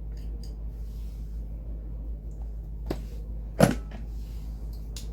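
Metal hand tools being handled and set down: a few light clicks and two knocks, the louder one about three and a half seconds in, over a steady low hum.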